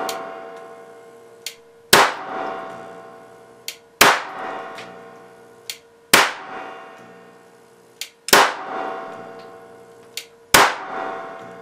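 A 6400 V, 70 µF capacitor bank discharging through a probe into a CRT monitor circuit board: five sharp, loud cracks about two seconds apart, each ringing out briefly and each preceded by a much smaller snap.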